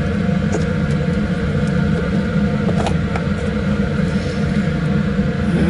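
Steady hum and rumble of a laminar flow cabinet's blower fan, with a few faint clicks from forceps and plastic culture containers being handled.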